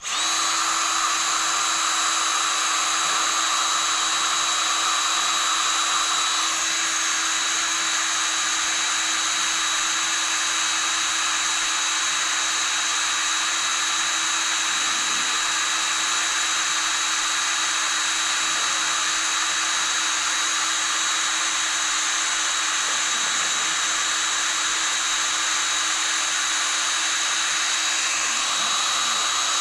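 Electric drill running steadily under load, its bit boring out the hinge pin screw of a Brompton folding bike, with a constant high whine. It starts suddenly at the beginning and runs without a break.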